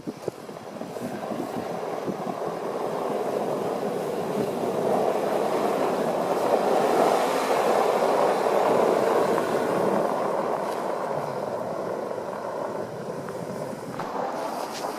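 A vehicle passing by: a broad rushing drone that builds over several seconds, is loudest midway, then fades away.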